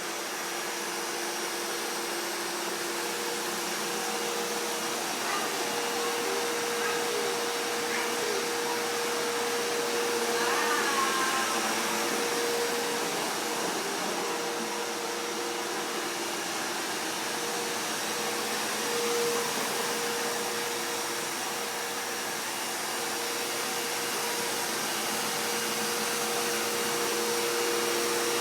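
Vacuum cleaner running steadily, its motor holding one even pitch.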